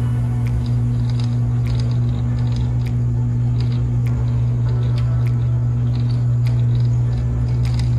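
Propeller airliner's engines and propellers running with a steady, unchanging low drone, heard inside the cabin, with light, irregular ticks on top.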